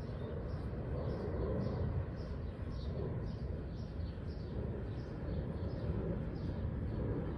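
Short high chirps repeating evenly, about twice a second, over a steady low rumble.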